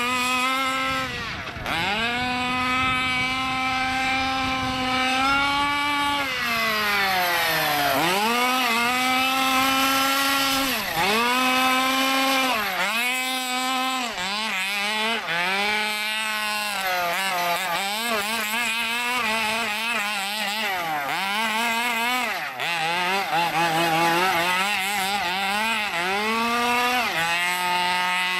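Racing stroked 30cc Zenoah two-stroke engine of an MCD X4 Rally 1/5-scale RC car, revving high and dropping back over and over as the throttle is worked. It has several steady high-pitched stretches at speed and quick dips in between.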